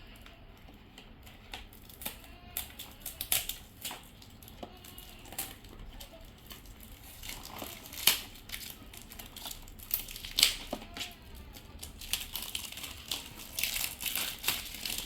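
A toy blind box being opened by hand: packaging crinkling and rustling, with irregular sharp clicks and snaps, the loudest about 8 and 10 seconds in.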